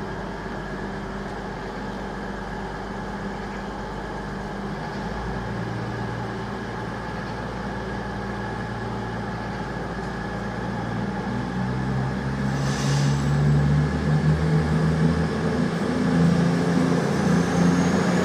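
CrossCountry Voyager diesel multiple unit's underfloor diesel engines running steadily at idle. About eleven seconds in, the engine note rises in pitch and grows louder as the engines power up, with a brief hiss about two seconds later.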